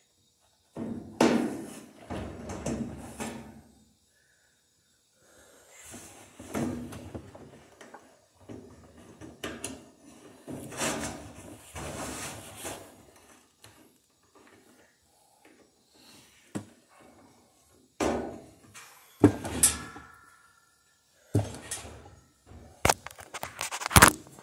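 Irregular clunks, rattles and scraping of plastic and metal parts of a Whirlpool top-load washer as its tub suspension is worked on inside the cabinet, with a burst of sharp knocks near the end.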